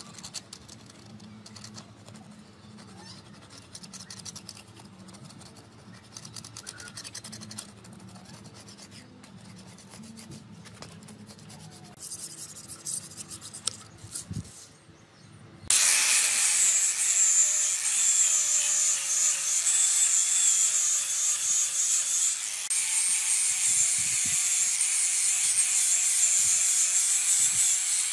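Steel hand scraper rasping old paint and filler off a milling machine's cast-iron body in quiet, uneven strokes. About halfway through, an electric angle grinder with a sanding disc cuts in loudly and runs steadily against the metal, a high whine that wavers in pitch.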